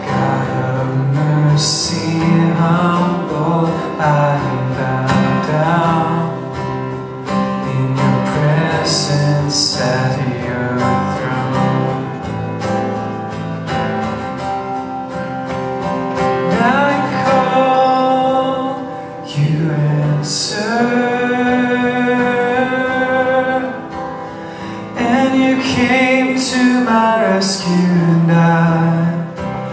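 Worship song: a man singing with strummed acoustic guitar.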